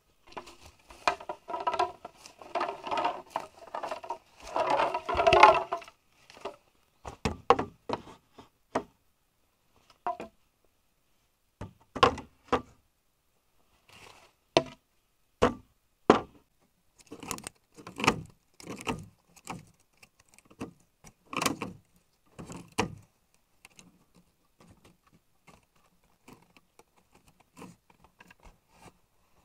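Hand work on bamboo or wood: for about six seconds a dense scraping and rattling with a slight ring to it, then separate sharp knocks and taps, irregular and about a second or so apart, thinning to faint taps near the end.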